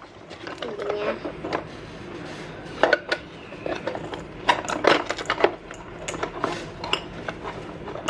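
Small plastic toy ice-cream pieces clicking and clattering as they are handled and set down, a run of short irregular knocks.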